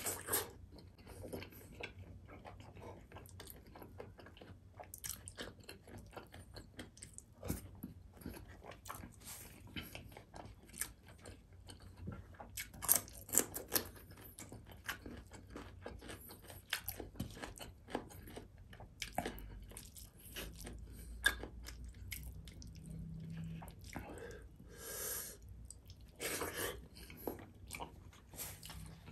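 Close-miked chewing and wet mouth sounds of a man eating rice and beef rendang with stir-fried string beans by hand, with many irregular clicks and smacks.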